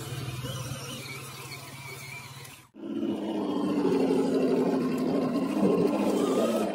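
Electric motors and gear drives of 1/10-scale RC crawlers whining and growling as they drive over leaf litter. After a brief break about a third of the way in, a louder, rougher growl takes over.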